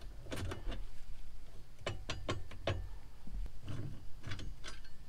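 Metal parts and hand tools clicking and clinking as they are handled: a few light clicks about half a second in, a quick run of four or five around two seconds in, and a few more near the end.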